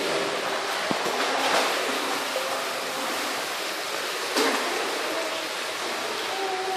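Pool water sloshing and splashing as a toddler is pulled through it, over a steady rush of water in an echoing indoor pool hall. Two slightly louder splashes come about a second and a half in and about four and a half seconds in.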